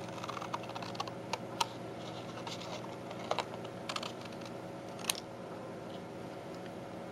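Scissors snipping through thick paper paint-sample cards: a scatter of short, crisp cuts and clicks, bunched in the first second and a half with a few more later, over a steady low hum.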